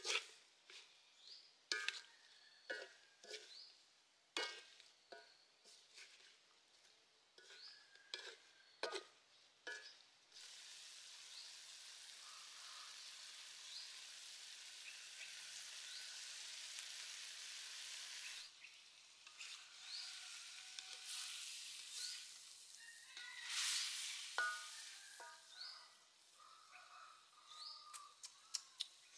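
Metal spatula clanking and scraping against a steel wok as frog meat and basil are stir-fried, with sharp knocks at an irregular pace. From about ten seconds in, a steady sizzle of the food frying in the hot wok goes on for about eight seconds, then the spatula strokes return.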